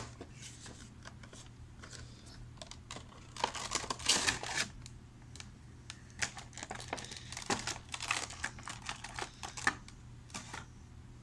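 Funko Pop packaging being handled as the vinyl figure is taken out: a cardboard insert and a clear plastic bag rustle and crinkle in irregular bursts. The noise is loudest about four seconds in.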